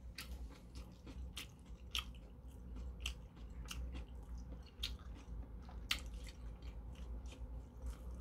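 Close-miked mouth sounds of a man eating steamed dumplings: irregular wet smacks and clicks of chewing, and a bite into a dumpling near the end, over a low steady hum.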